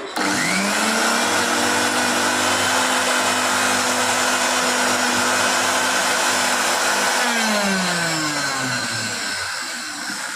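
Mixer grinder's universal motor switched on, whining up to full speed within about a second and running steadily. About seven seconds in it is switched off and spins down with a falling whine. It is being test-run on freshly fitted carbon brushes.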